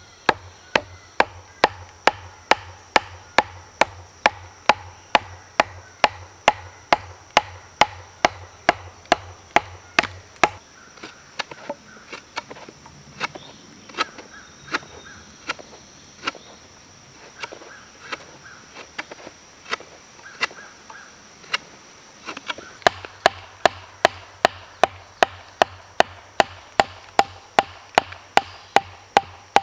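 A short log used as a wooden mallet pounding the top of a wooden stake, driving it into the ground with sharp wood-on-wood knocks about twice a second. In the middle stretch the blows turn quieter and less regular, then the steady hard pounding resumes.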